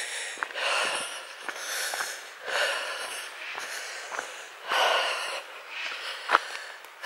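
A walker breathing hard, a noisy breath every second or two, with footsteps on a dirt path.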